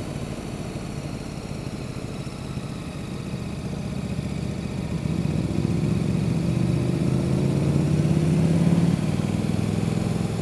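Motorcycle engine running while riding, under a steady drone of road and wind noise. From about halfway through, a louder engine note comes in, its pitch rising slightly, and it eases off near the end.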